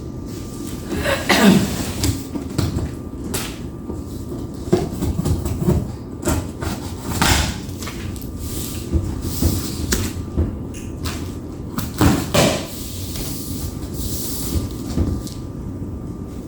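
Cardboard furniture boxes and the parts inside them being handled and moved: irregular knocks, scrapes and rustling, with a few sharper bumps.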